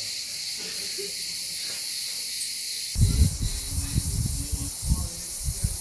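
Crickets chirring in a steady, high-pitched chorus. About halfway through, irregular low bumps and rumbling join in.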